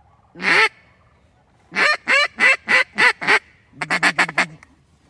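Loud waterfowl calls: a single call, then a series of about six evenly spaced calls, then a quick run of short chattering notes.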